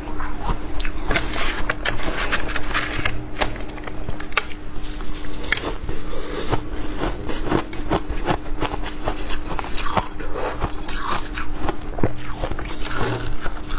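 Shaved ice being crunched and chewed in the mouth: a dense run of crisp, irregular crunches with no pause, under a faint steady hum.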